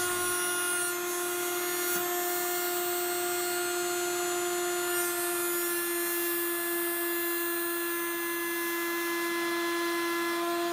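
Table-mounted router running at speed with a flush-trim bit, trimming glued-on purpleheart flush with the jaw: a steady, even high whine.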